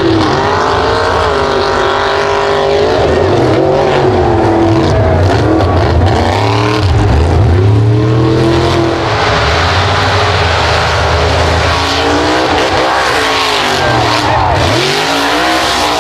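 Big mud-truck engines revving hard, their pitch rising and falling again and again, as the trucks spin their tyres through deep mud.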